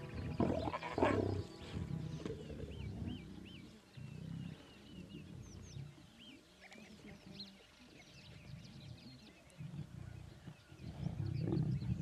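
Lionesses growling low over a zebra kill, in short rumbling bouts with quieter gaps, loudest near the end.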